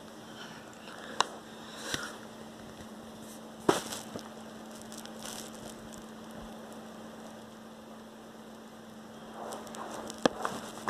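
A steady low electrical-sounding hum, broken by a few short sharp taps and knocks: one about a second in, one at two seconds, the loudest near four seconds, and a small cluster near the end.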